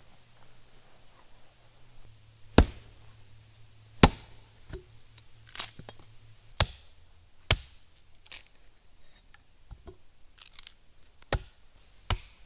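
Wood being broken up, likely sticks snapped or chopped to lay a fire base: about ten sharp, irregularly spaced cracks and knocks, the first two loudest.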